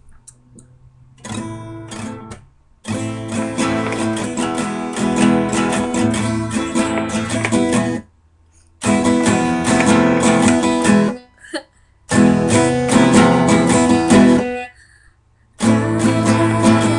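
Strummed acoustic guitar music in a Mexican style. It starts about three seconds in and breaks off abruptly three times, with short silences between the bursts.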